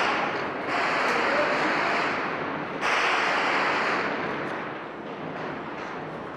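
Gunfire: sudden loud reports about a second in and again near three seconds, each trailing off in a long echo, with a few fainter sharp cracks between.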